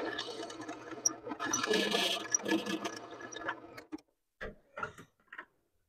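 Drill press winding down after being switched off: its motor hum and spindle noise fade away over about three and a half seconds. A few light clicks and knocks follow near the end.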